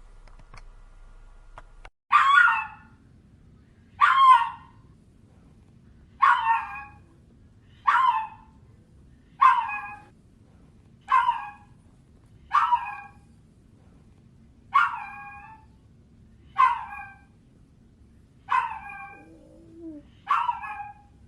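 A dog crying: about two seconds in, eleven short whining yelps begin, one every second and a half to two seconds, each falling in pitch. A faint steady hum comes before them.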